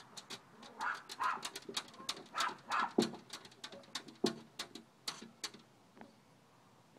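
Excited dog behind a glass door whining and yipping, with rapid squeaks and taps from its tongue and paws against the glass. The noise dies down about five and a half seconds in.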